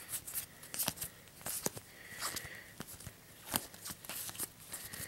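Sleeved trading cards handled and flipped through by hand: soft, irregular clicks and rustles of card and plastic.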